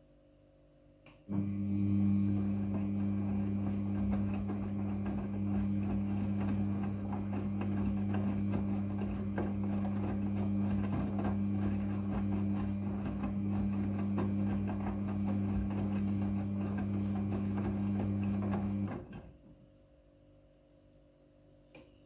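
Midea front-loading washing machine turning its drum in a wash tumble, a steady motor hum with towels churning through water; it starts suddenly about a second in and stops shortly before the end.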